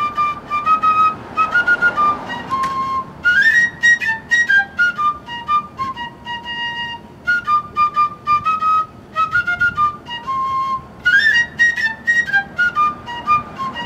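Background music: a fife playing a quick tune of short, high notes over sharp percussive taps.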